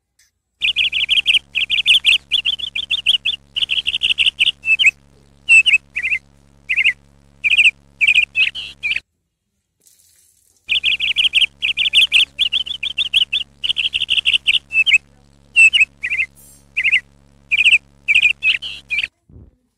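Sparrows chattering and screaming in alarm at a cat: rapid bursts of chirps and trills over a faint steady hum. The same run of calls plays twice, with about a second and a half of silence between.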